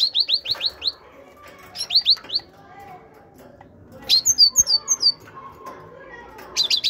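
Great tit calling in four quick bursts of short, rapidly repeated downward-sweeping notes. The burst about 4 seconds in is higher and thinner than the others.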